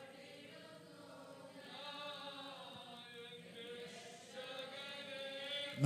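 Faint group singing of a Malayalam Christian worship song, well below the amplified lead voice heard on either side.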